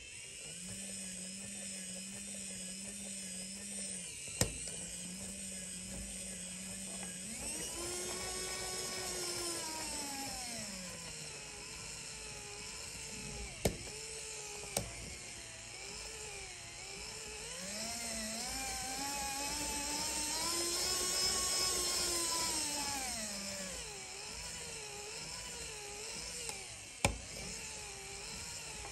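LEGO Technic electric motor whining as it drives the gear train and wheels of a FWD/RWD/AWD mode selector mechanism. The pitch holds steady at first, then rises and falls slowly twice. A few sharp clicks come through it, two close together near the middle as the selector is shifted by hand.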